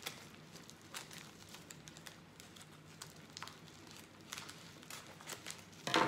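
Scissors snipping through the end of a plastic bubble mailer, faint clicks and crinkles of the plastic. Near the end a louder short clatter as the scissors are set down on the wooden table.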